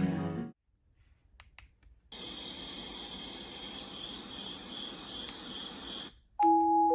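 Sound machine playing a recorded crickets nature sound: steady rhythmic chirping over a hiss. It starts about two seconds in after a near-silent pause with a few faint clicks, and cuts off about six seconds in.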